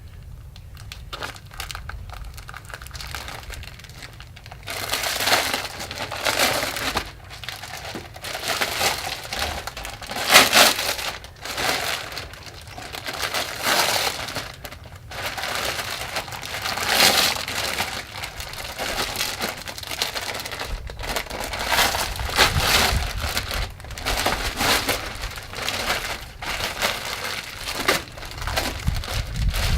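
Plastic protective film being peeled off a resin-impregnated glass-fibre spot-repair mat and crinkling irregularly, starting about four and a half seconds in.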